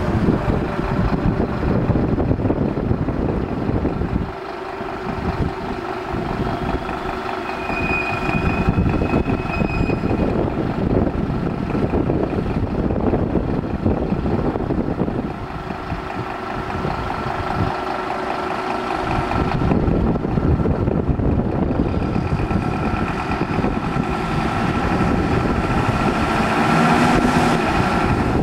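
Diesel engine of a Scania fire engine running steadily at idle, with some steady tones over it.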